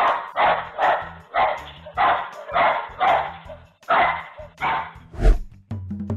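A small dog barking over and over in alarm, about two barks a second, heard through a security camera's thin, tinny microphone.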